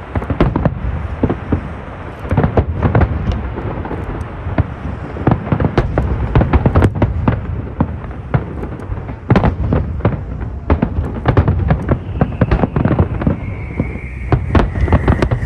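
Fireworks display: aerial shells bursting in quick, overlapping succession, sharp bangs over a continuous low rumble of booms. Near the end a high, slightly falling whistling tone joins the bangs.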